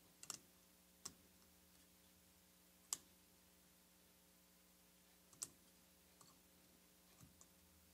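A handful of faint, sharp, irregularly spaced clicks from small metal tools tapping against the open Reactor Atom watch's case and the new SR626 (377) button-cell battery as it is worked in under its retainer.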